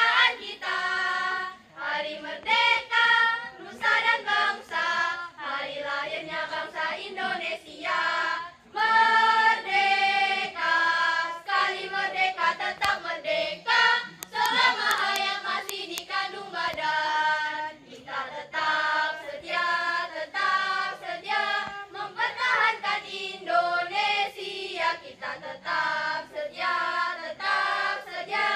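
A mixed school choir of teenage boys and girls singing an Indonesian national song together, conducted, in sung phrases with short breaths between them.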